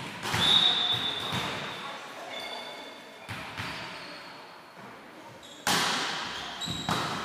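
A volleyball being struck again and again during a rally, each hit a sharp smack that echoes through the sports hall. The loudest hits come just after the start and about two-thirds of the way through.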